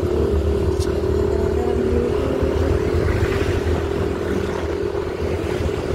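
Motorcycle running at a steady cruising speed, heard from the pillion seat, with a steady whine over low rumble and road noise. Another motorcycle passes close by about halfway through.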